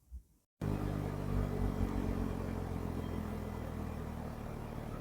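Audi car engine starting up audibly about half a second in and then running steadily with a low exhaust note, with no rattle or vibration from the newly fitted number plate.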